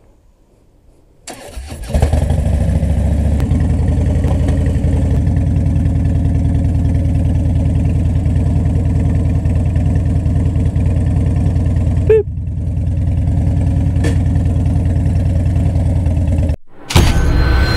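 A Harley-Davidson Dyna's V-twin engine cranked and catching about a second in, then running at a steady idle; about ten seconds in it gives a short blip and dip before settling back. It cuts off abruptly near the end, where loud intro music begins.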